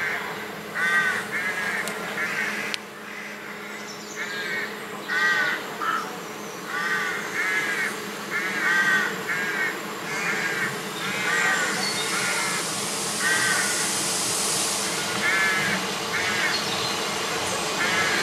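A crow cawing over and over, short harsh calls often in pairs. From about two-thirds of the way through, a double-deck VB2N push-pull train grows louder as it approaches along the track.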